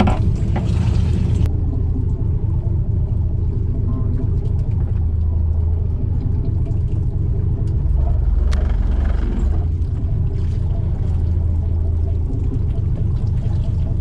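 Fishing boat's engine running with a steady low rumble, swelling briefly about eight seconds in.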